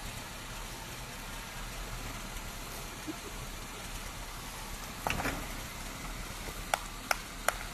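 Suzuki Samurai's four-cylinder engine running steadily at low revs as the 4x4 creeps over a log seesaw. A thump comes about five seconds in, and three sharp knocks follow near the end.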